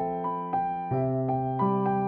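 Soft solo piano music: a slow broken-chord pattern of about three notes a second over held bass notes, which change about a second in and again near the end.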